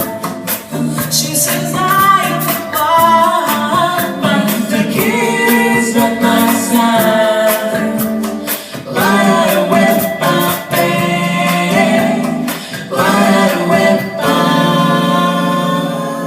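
Female vocal trio singing in harmony through a PA system, without words the transcriber could catch, over a beat of sharp clicks, ending on a long held chord about 14 seconds in.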